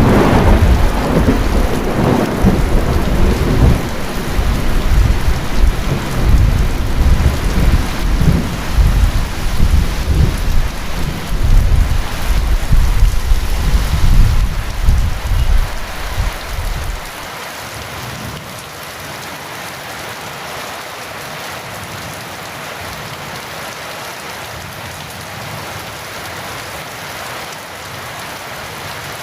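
Heavy rain falling steadily, with a long low rumble of thunder under it that cuts off suddenly a little over halfway through, leaving only the even hiss of the rain.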